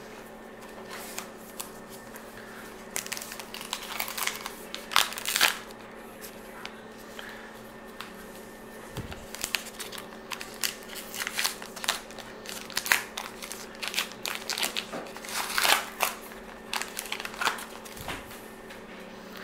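Crinkling and tearing of a Topps baseball card pack wrapper as it is handled and ripped open by hand, in irregular clusters of sharp crackles.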